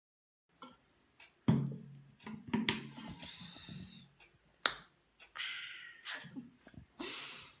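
Handling noises of a water bottle being picked up and drunk from: a loud knock about a second and a half in, then scattered clicks and short hissy stretches.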